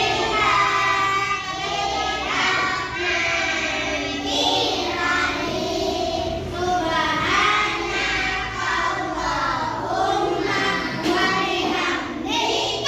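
Several children singing a song together.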